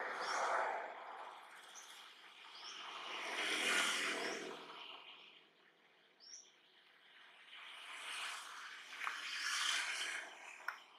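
Outdoor ambience: three slow swells of rushing noise rise and fall, with short high chirps every second or two and a faint steady high whine underneath.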